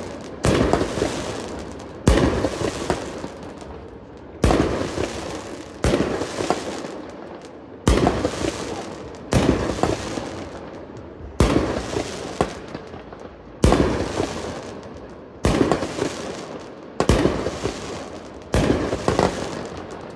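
A 1.4G consumer firework cake firing shot after shot, about a dozen in all, one every one and a half to two seconds. Each shot is a sharp bang followed by a noisy tail that dies away before the next.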